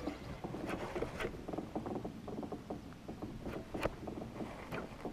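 Shimano Tranx 300 baitcasting reel being cranked to retrieve a glide bait: a fast, uneven clicking of the reel with a few sharper clicks.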